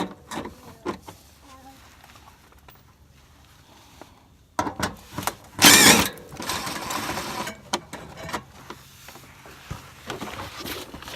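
Socket wrench clicking on the small bolts of a plastic underbody splash tray, with loud rattling and scraping of the flimsy tray about halfway through as it is worked loose.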